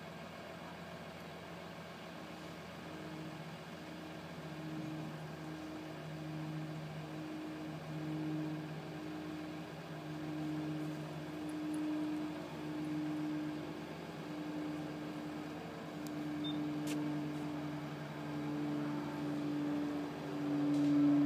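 Mobile crane's engine running under load while lifting a sailboat. It makes a low hum that pulses about once a second and slowly grows louder, with a couple of faint clicks near the end.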